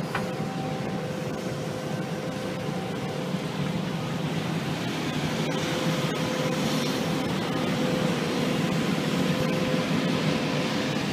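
Diesel engines of a tracked excavator and an articulated dump truck running steadily as the excavator loads soil, with a steady whine running through.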